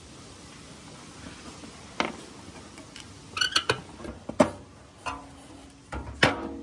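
Sharp clinks and knocks from handling the rusty steel housing of an old smoke machine: one single knock, then a quick cluster, with the loudest about four seconds in and a last one that rings briefly.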